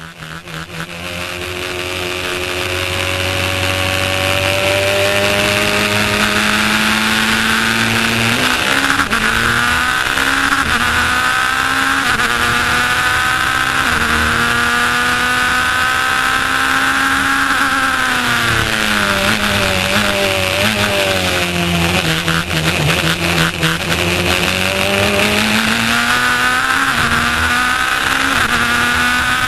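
Racing car engine heard from inside the open cockpit at full race pace. It fades in at the start, then pulls up in pitch under acceleration. About two-thirds through it drops sharply as the car brakes and downshifts, then climbs again near the end, with a steady rush of wind and road noise underneath.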